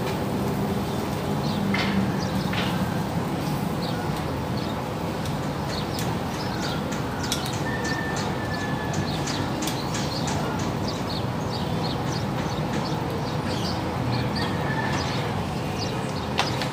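Round scad grilling over charcoal on a wire grill: scattered small crackles and sizzling over a steady background rumble, with a few short bird chirps about halfway through and near the end.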